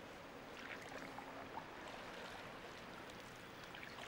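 Faint water sounds of a canoe paddle on a calm river: small scattered drips and trickles over a low steady hiss.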